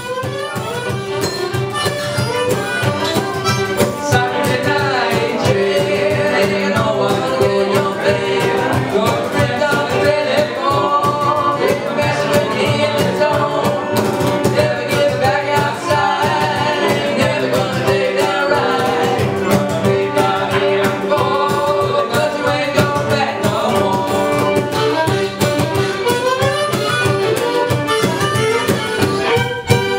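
Live acoustic blues band playing: fiddle and harmonica carrying the melody over acoustic guitar, with a steady percussion beat.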